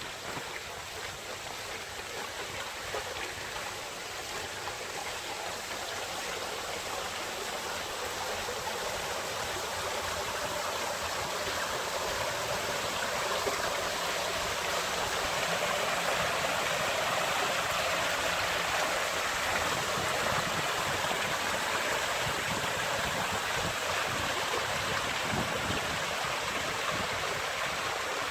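Water from an artificial waterfall pouring and splashing steadily into an ornamental garden pond, growing louder over the first half and then holding steady.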